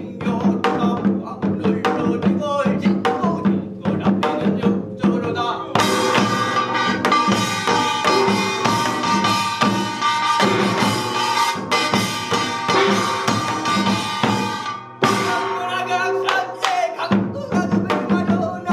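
Binari, a Korean ritual blessing chant, sung over samul nori percussion, mainly janggu and buk drums. About six seconds in, the playing turns dense and bright with ringing metal for several seconds. After a brief drop, the sparser drum pattern under the voice returns.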